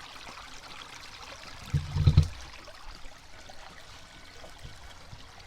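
Creek water flowing steadily, with a brief low thump about two seconds in.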